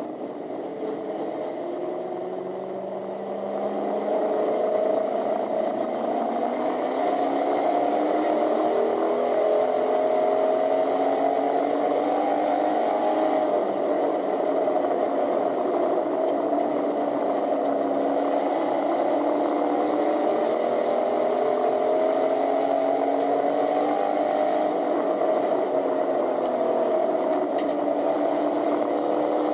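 Pure stock race car's engine heard from inside the cockpit, rising and falling in pitch as it accelerates and backs off. It gets louder about four seconds in.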